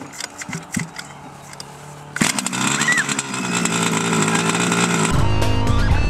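A few light clicks, then about two seconds in the 1/5 scale RC car's 30.5 cc two-stroke engine starts and runs steadily; the owner calls the engine beat, with weaker compression. About five seconds in, the engine gives way to music with a heavy bass.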